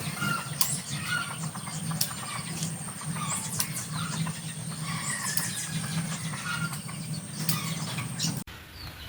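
Small birds chirping in short repeated calls, some sweeping down in pitch, over a steady high-pitched whine and a low hum. It all cuts off abruptly near the end.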